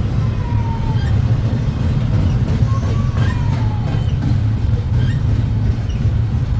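Long freight train rolling past, its cars giving a steady low rumble.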